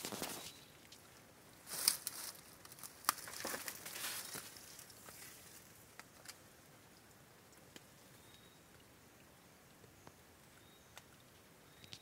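Footsteps and rustling through dry leaf litter and undergrowth: a few crunching steps with sharp snaps in the first half, then it goes quiet apart from occasional faint ticks.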